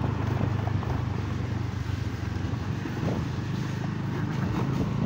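Motorcycle engine running steadily as it is ridden along, a low even hum with road and wind noise over it.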